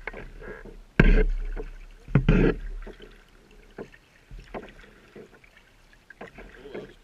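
Kayak paddling: a paddle stroking through calm water, with two loud thumps about one and two seconds in, then quieter strokes every second or so.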